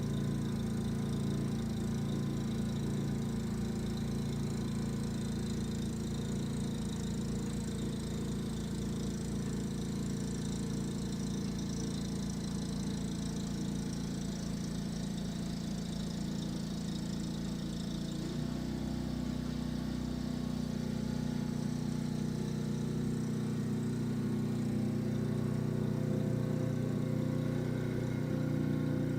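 Snow blower engine running steadily, its note shifting slightly about two-thirds of the way through.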